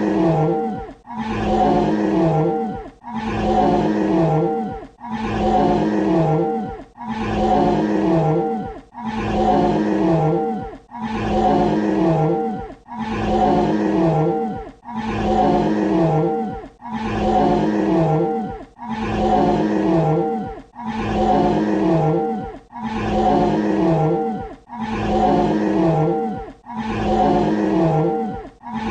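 Dinosaur roar sound effect, the same roar repeated about every two seconds with a brief break between each.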